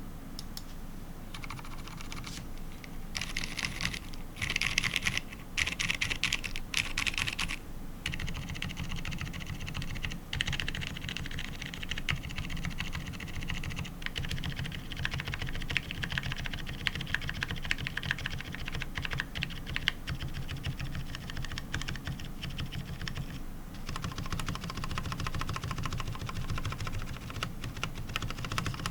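Typing on an ABKO AR87 mechanical keyboard with fully lubed Cherry MX Silent Red linear switches, an aluminium plate and PBT keycaps: rapid, continuous keystrokes. A louder, brighter stretch of key presses runs from about three to eight seconds in.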